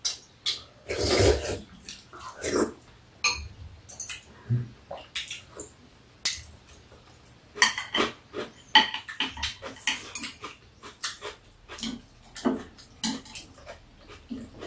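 Metal chopsticks and spoons clicking against bowls and plates during a meal, with chewing and slurping mouth sounds, the loudest about a second in.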